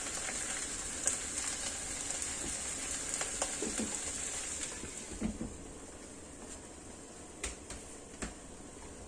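Minced pork and preserved vegetables sizzling in a nonstick wok, with the spatula scraping and tapping as the meat is spread out. About halfway through the sizzle becomes quieter, and near the end there are two sharp knocks as the glass lid goes on the wok.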